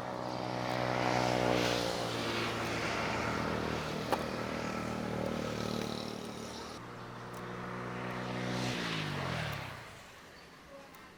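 A small engine running with a steady hum, then slowing and dying away near the end.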